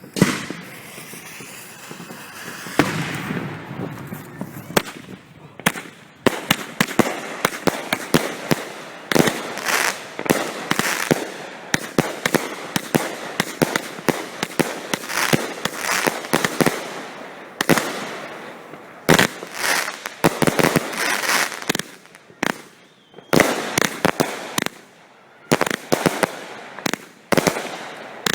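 Several 200-gram firework cakes firing at once, among them Cutting Edge Power Zone angled salute cakes: a dense barrage of sharp reports and crackle in rapid volleys, with brief lulls between them.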